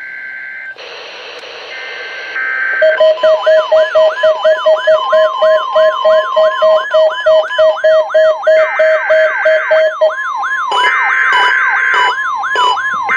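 Several NOAA Weather Radio receivers alarming at once, set off by the weekly test, which opens with a buzzy electronic data burst. From about three seconds in the alarms pile up: a repeated rising sweep about twice a second, fast pulsed beeps and a steady tone. The beeps stop about ten seconds in while the sweeps and the tone continue.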